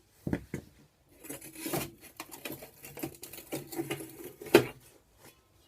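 Hand tools being handled and set down on a hard surface: a string of knocks, clicks and rattles, with a sharp knock about four and a half seconds in.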